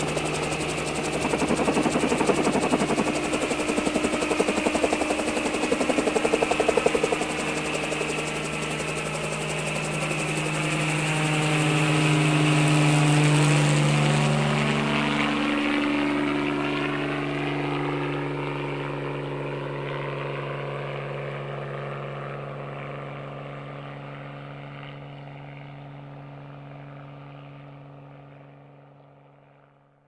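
Helicopter taking off and flying away. Pulsing rotor chop at first, then steady engine and rotor tones that drop in pitch about 15 seconds in and fade away slowly until gone near the end.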